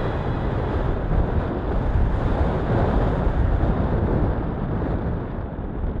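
Wind rushing over the microphone of a camera mounted on a radio-controlled model plane as it glides in low to land. No steady motor tone is heard, and the hiss thins out over the last second or two as the plane slows.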